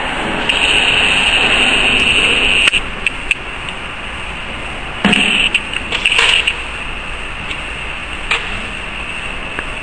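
Steel punches and dies clinking against the turret of a ZP9 rotary tablet press as they are fitted by hand: a few sharp metal clicks and knocks, the loudest about five seconds in, over a steady background hiss.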